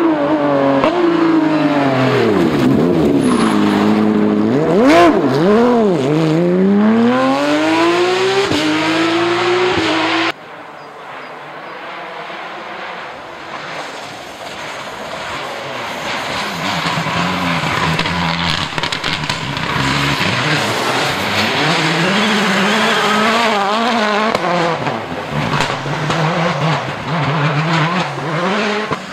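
Rally car engines at full effort in two passes. The first car's engine revs hard, its pitch falling and rising again several times through downshifts and accelerations. After an abrupt cut about ten seconds in, a second car on a gravel stage is heard fainter at first, then louder as it comes closer, revving through gear changes.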